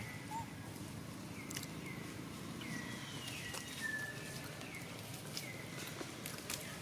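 Outdoor ambience with a series of short, high animal calls that slide downward in pitch, about one a second, and a few faint dry-leaf crackles.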